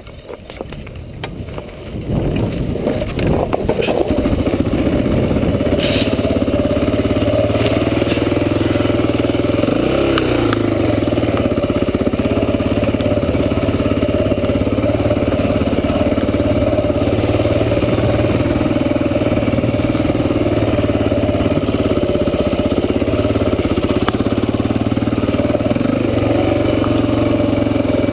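Honda XR400 dirt bike's four-stroke single-cylinder engine catching about two seconds in, then running steadily while riding, with a brief rise and fall in revs about ten seconds in.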